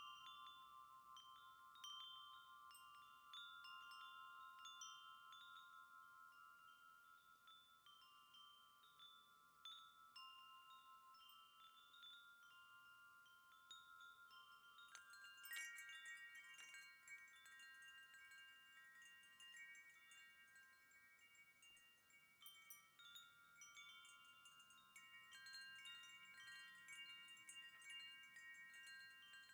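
Wind chimes ringing faintly, struck again and again so their clear tones overlap and ring on. About halfway through, a higher, brighter set of chime tones joins in.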